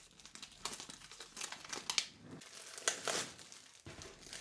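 Wrapping crinkling and tearing as it is pulled off a hardcover comic omnibus, in irregular crackles.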